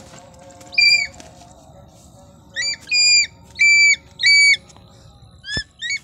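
A bird of prey calling: a series of loud, piercing whistled calls, each about a third of a second long, five of them in the first four and a half seconds, then two shorter rising calls near the end.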